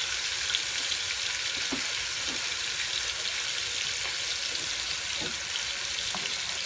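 Pork steaks searing in shallow oil in a large skillet: a steady sizzle with a few faint crackles.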